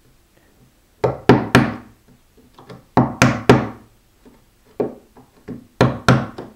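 Mallet blows on a chisel chopping dovetail waste in pine end grain. The sharp knocks come in quick groups of three, with a few softer taps between the groups.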